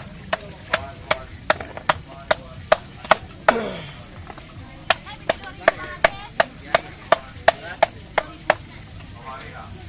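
A wooden club striking eels on a tarp with sharp, even knocks, about two and a half a second, in two runs with a pause between them. A short falling squeak comes in the pause.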